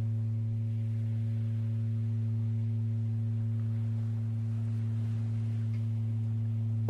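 Music: a steady low drone tone with a few fainter, higher sustained tones above it, unchanging.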